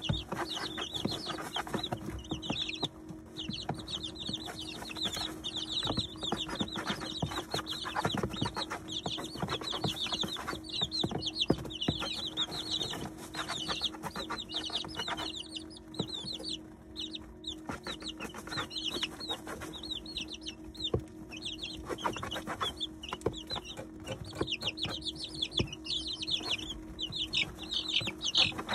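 A brood of 19-day-old chicks peeping nonstop in many short, high chirps, with a thinner spell about halfway through. Sharp clicks of beaks pecking at feed in the feeder and bedding run through it, over a steady low hum.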